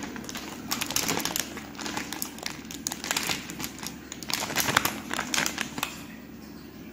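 Irregular crinkling and rustling while gram flour (besan) is tipped into a steel bowl of grated bottle gourd. It quietens in the last second or so.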